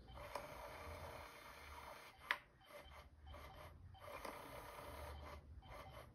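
Small motor of a battery-powered rotating cat toy whirring faintly in stretches as it turns and pops out a feather wand, with a single sharp click about two seconds in.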